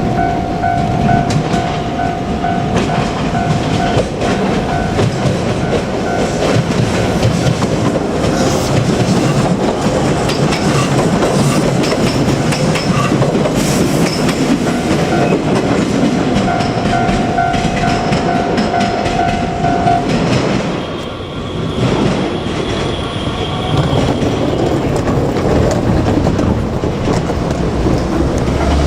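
JR Kyushu 817 series electric train passing a level crossing, wheels clattering over the rail joints, while the crossing's warning bell rings in a rapid, repeated tone. The bell stops about twenty seconds in, and the train noise keeps going.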